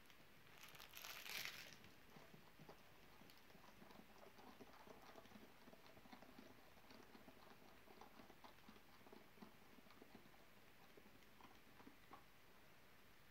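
A short rustle about a second in, then faint, irregular light clicks and scrapes of a spoon stirring a drink in a drinking glass.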